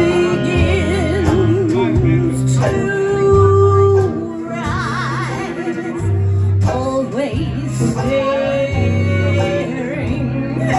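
A live hot-jazz band playing: banjo, fiddle, clarinet, drums and a walking upright-bass line, with a singer holding notes in a wide vibrato.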